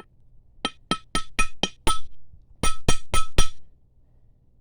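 Sharp metallic clinks, about ten in two quick runs, each with a short bright ring at the same pitch: a dug-up metal bearing cap being struck against metal.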